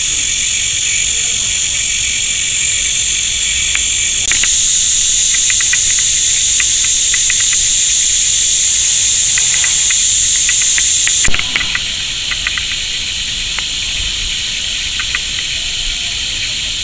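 Steady high-pitched insect chorus, louder about four seconds in and dropping sharply about eleven seconds in with a short knock, over faint scattered ticking.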